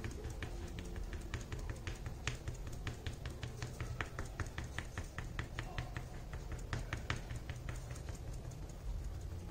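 Sponge dauber dabbing white gesso onto an MDF clock base: a quick, uneven run of light taps, several a second, over a low steady hum.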